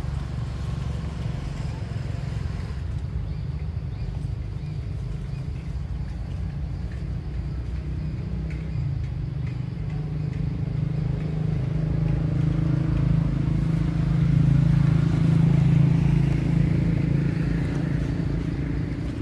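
Low, steady hum of a motor vehicle engine, growing louder about twelve seconds in and easing off again near the end.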